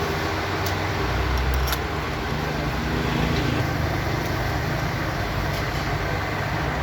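Car engine running steadily, with a few faint clicks.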